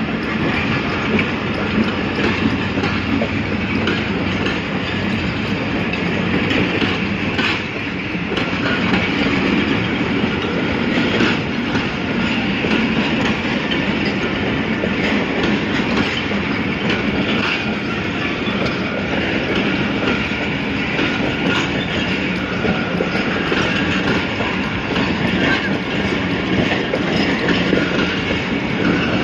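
Pakistan Railways passenger coaches rolling past close by, their wheels clicking over the rail joints in a steady clickety-clack.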